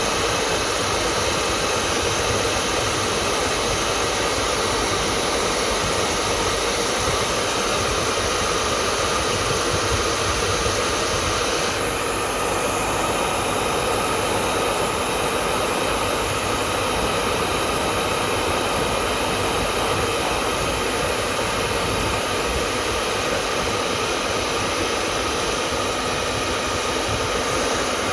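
Hair dryer running steadily, a continuous even whooshing hiss of fan and airflow. About twelve seconds in, the higher part of the hiss shifts slightly.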